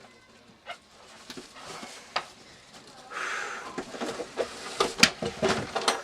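Handling noises as heavy 8-gauge wire is worked through a tight tube: scattered clicks and knocks, with a rustling scrape from about three seconds in and the sharpest knocks near five seconds.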